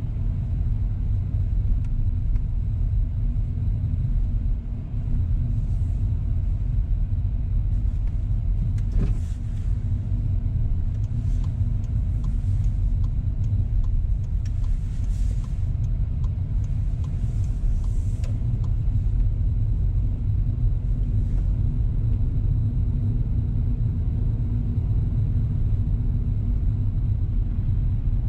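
A car driving, heard from inside the cabin: a steady low rumble of engine and road noise, with a faint click about nine seconds in.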